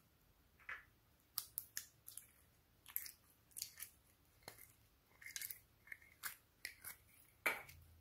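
Orange glitter slime being scooped out of a small plastic tub with the fingers and stretched by hand: irregular sticky pops and crackles, a few a second, with a louder one near the end.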